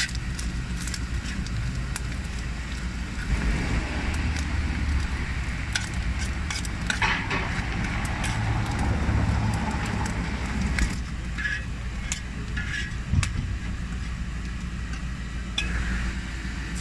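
Chopped pork frying and sizzling in bubbling fat on a street-taco comal, with frequent clicks and scrapes of a metal spatula and tongs against the hot steel, over a steady low hum.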